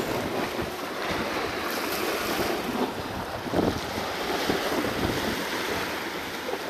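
Sea swell washing and breaking over a rock ledge, a steady rushing wash, with wind buffeting the microphone.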